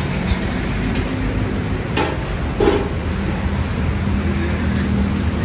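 Steady engine-like hum from a machine running nearby, with two short knocks about two seconds in.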